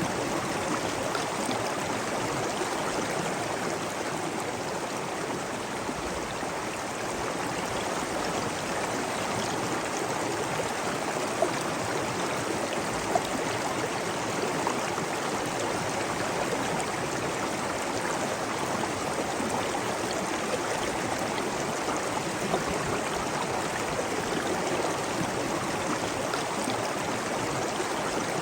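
Flowing water rushing and splashing steadily, with a few faint drip-like clicks.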